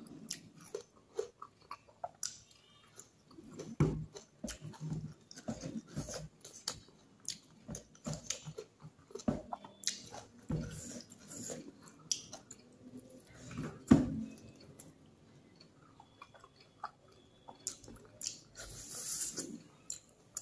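Close-up mouth sounds of a person eating rice and fish curry by hand: irregular wet chewing, lip smacks and small clicks, the loudest smack about two-thirds of the way through. A short hiss comes near the end.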